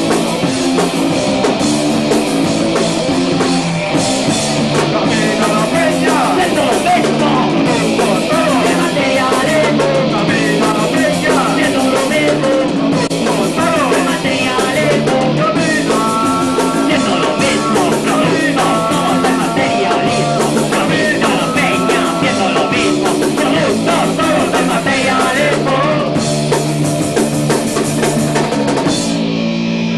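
Live punk rock band playing: electric guitars and a drum kit driving a fast song, with singing. The band thins out just before the end.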